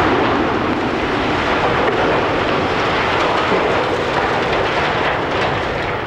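Loud, steady rumbling noise just after an explosive demolition charge goes off at the base of a steel water tower, as the tower starts to topple.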